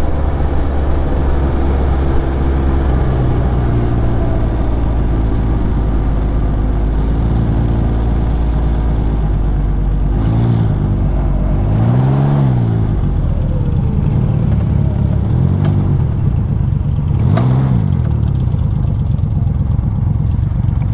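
Can-Am Ryker Rally's three-cylinder engine running steadily under way, its note rising and falling several times past the middle as the throttle is opened and eased off.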